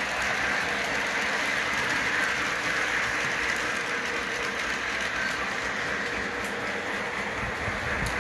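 Lionel model freight train rolling past on its track, making a steady running noise of wheels and rails.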